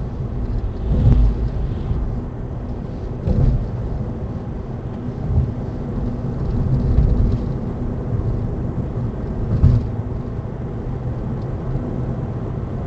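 Smart EQ (453) electric car making the strange noise under investigation: a continuous low rumble with a steady hum, broken by several heavier thumps.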